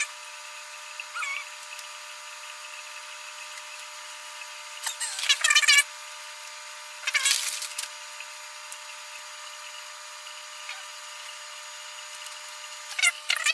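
Fast-forwarded room sound from a home aquarium: the tank equipment's hum, raised in pitch to a steady high tone, with short bursts of high, chittering noise about five seconds in, about seven seconds in and near the end.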